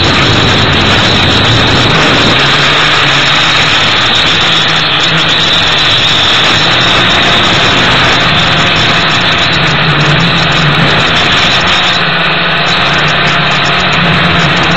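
Gptoys Aviax F2C quadcopter's motors and propellers running steadily, picked up close by the drone's own onboard camera microphone as a loud, unbroken buzzing hum with hiss.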